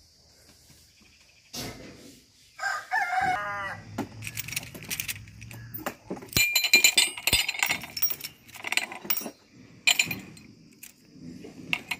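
A handful of steel sleeve anchor bolts clinking and rattling against each other and onto steel base plates, in a run of sharp metallic clicks from about halfway through. Near three seconds in, a rooster crows briefly.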